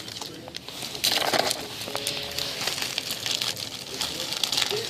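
Foil hockey card pack wrapper crinkling and crackling as packs are opened and the cards handled, with a faint voice in the background.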